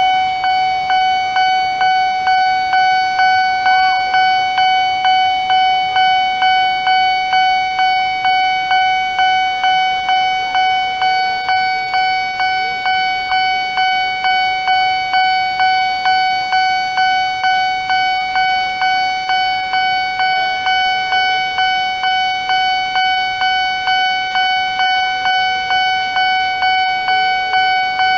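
Nippon Signal electronic level-crossing alarm ringing its bell tone over and over, a little under two strokes a second, each stroke fading before the next. It warns that a train is coming while the crossing barriers are down.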